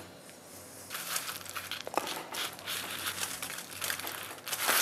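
Aluminium foil crinkling and rustling under hands as a foil-wrapped pork shoulder is handled, starting about a second in and growing louder near the end, with one sharp tick about two seconds in.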